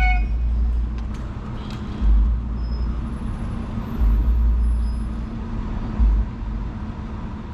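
Wind rumbling on the microphone in gusts every couple of seconds, over a steady low hum of road traffic.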